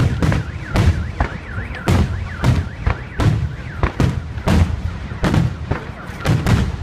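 Aerial firework shells bursting in quick succession, about a dozen sharp bangs with a low rumble, roughly two a second. A car alarm warbles through the first second or so.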